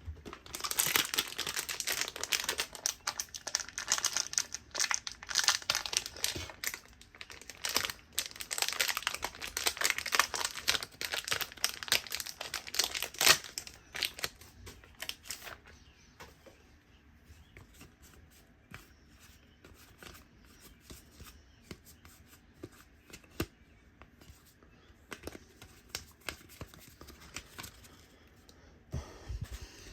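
Trading-card pack wrapper being torn open and crinkled for about the first thirteen seconds. Then quieter light ticks and rustles as the cards are handled and flicked through one by one.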